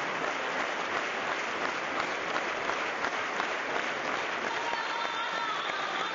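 A large crowd clapping steadily: dense, continuous applause.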